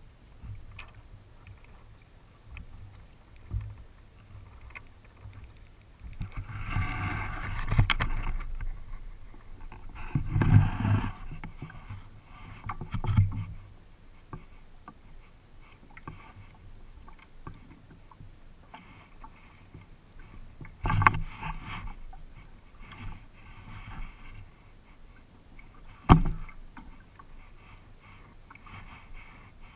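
Water splashing and slapping against the hull and outrigger float of a Hobie Adventure Island sailing kayak in irregular surges a second or two long, with a few sharp knocks against the boat.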